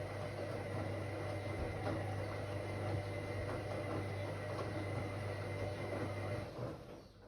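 Whirlpool AWOC 8283 washing machine running with a steady hum and a faint high whine, which dies away about six and a half seconds in as the motor stops.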